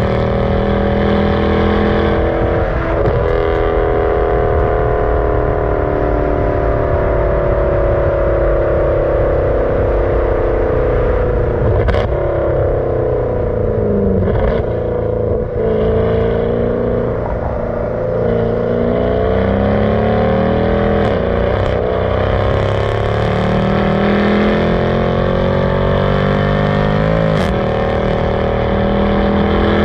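Car engine running while the car is driven. Its pitch sinks slowly at first, then rises and drops several times later on as the revs change. A couple of sharp clicks cut through it.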